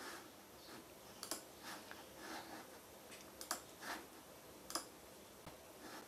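Faint, irregular clicks of a computer mouse and keys, about a dozen over several seconds, as a video is set playing on the computer.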